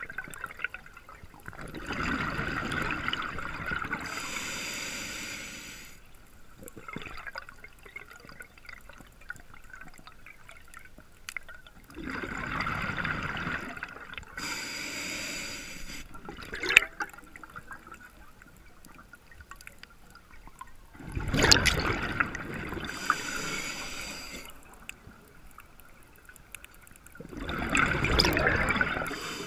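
Scuba diver breathing through a regulator, heard underwater. Each exhale is a rush of bubbles, and each inhale is a hiss from the regulator. The cycle repeats about every eight to ten seconds, with a single sharp click partway through.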